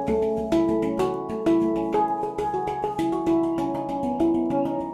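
Hang drum (handpan) played with the fingers: a quick run of struck notes, several a second, each ringing on with overtones so that the notes overlap into a melody.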